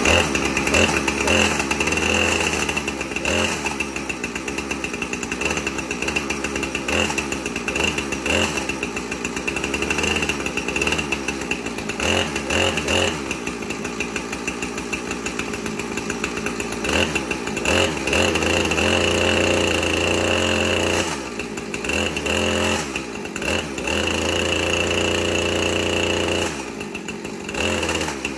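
Husqvarna 455 Rancher two-stroke chainsaw running, its throttle opened up and eased off several times, as the chain is run to check its slack.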